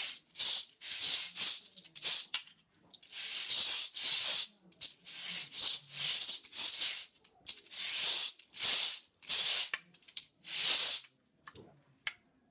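A Morse code message played by hand on percussion: a run of rattling shakes, some short and some longer, stand for the dots and dashes, with a few sharp knocks of objects struck together near the end.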